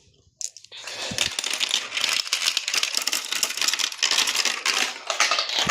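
Many marbles clattering and rolling down a marble run, a dense rapid clicking and rattling that starts suddenly about half a second in.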